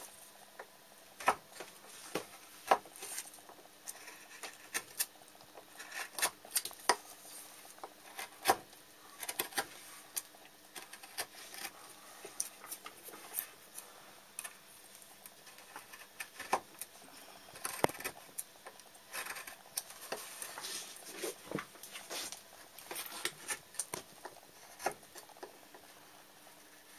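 Hand chisel carving wood, with irregular sharp clicks and short scrapes as the blade pares off shavings.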